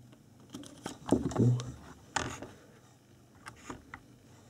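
Multimeter test-probe tips clicking and scraping against component legs and solder joints on a small circuit board, several short sharp clicks, the sharpest about two seconds in. A brief murmur of a voice about a second in.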